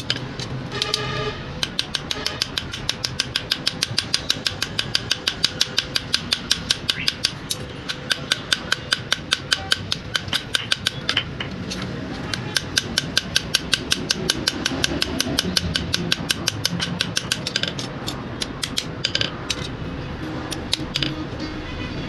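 Small hammer tapping quickly and evenly on the metal pins of a wooden knife handle, peening the rivets over, with the knife resting on a steel anvil block. About five light blows a second, the steel blade ringing faintly under the strikes.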